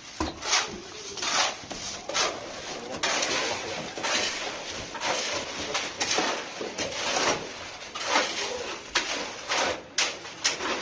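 Wet concrete being worked by hand: irregular scraping and clattering strokes of a hoe and buckets, about one or two a second.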